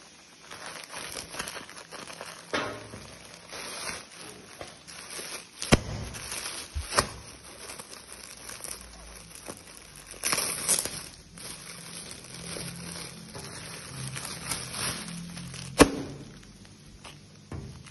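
Plastic courier mailer and clear plastic wrapping crinkling and tearing as they are cut and pulled open by hand. A few sharp clicks stand out, the loudest about six seconds in and again near the end.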